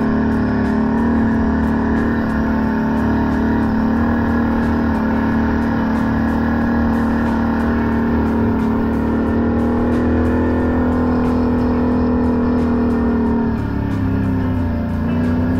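ATV engine running at a steady speed while riding a dirt trail. Its pitch drops near the end as the throttle eases off.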